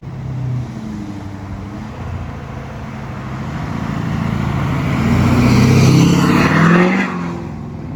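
Motor vehicle engine running, growing louder to a peak about six seconds in with its note rising slightly, then easing off.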